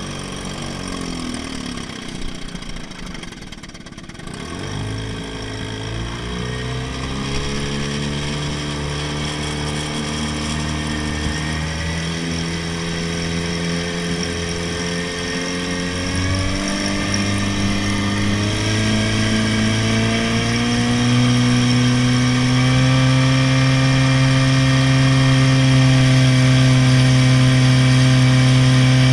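1954 Johnson Seahorse 10 hp two-stroke twin outboard running under way in forward gear. It dips about four seconds in, then climbs in pitch in steps as the throttle is opened and the boat gets up to speed, and settles into a steady, louder high-speed run for the last several seconds.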